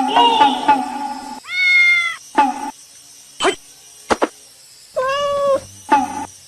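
Domestic cat meowing twice, two drawn-out meows about a second and a half in and again about five seconds in. A plucked-string music loop plays at the start and comes back in short snatches.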